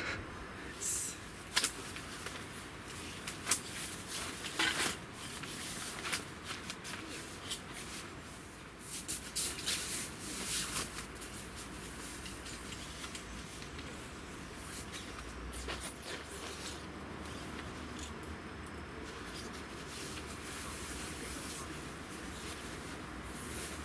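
Rustling and handling of camp bedding on a folding cot: a sleeping mat being unrolled and a sleeping bag shaken out and spread. Irregular short rustles and clicks, busiest in the first half, then softer.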